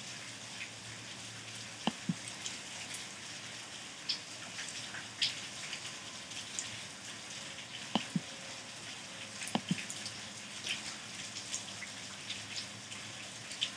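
Steady faint hiss with scattered small crackles, and three pairs of sharp clicks, each pair about a fifth of a second apart, about 2, 8 and 10 seconds in: a computer mouse being clicked while the slideshow is opened.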